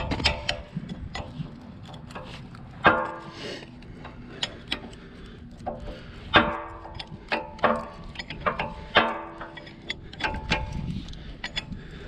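Steel combination wrenches clinking against a bolt and nut on an excavator's linkage as the bolt is worked loose: irregular sharp metal clinks, several ringing on for about half a second.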